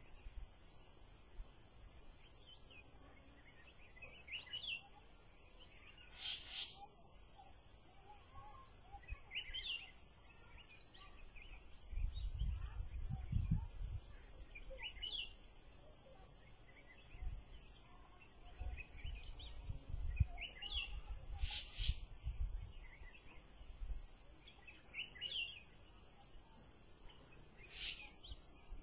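A steady, high two-pitched insect chorus, with short chirping calls every few seconds and three sharp clicks. In the middle there are dull low thuds and rumbles, fitting a stick and a snake moving against the boat's hull.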